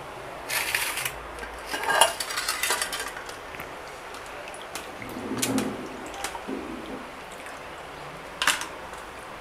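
Metal dishes and utensils clinking and scraping in several short bursts, with one sharp clink near the end.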